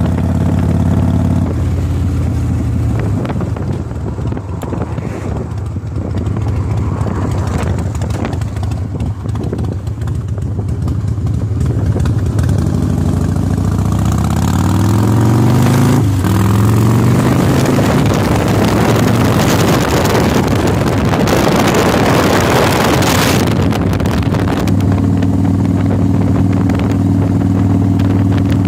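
Motorcycle engine running on the road, its pitch rising as it speeds up about halfway through, then loud wind rushing over the microphone for several seconds before the engine's steady drone comes back near the end.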